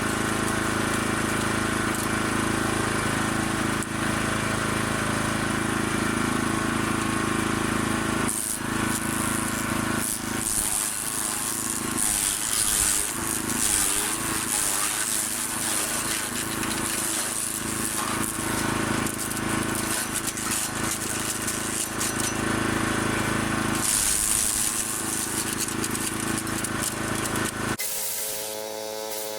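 Forest Master FM6DD small 6 hp petrol wood chipper running steadily. From about ten seconds in to a couple of seconds before the end, the engine note wavers under a rougher shredding noise as cuttings go through. Near the end the sound cuts abruptly to a different steady hum.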